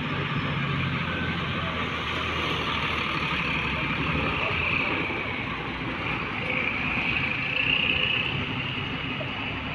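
Road traffic passing: a low engine hum for the first two seconds or so, then tyre and engine noise of vehicles going by, swelling twice and loudest about eight seconds in.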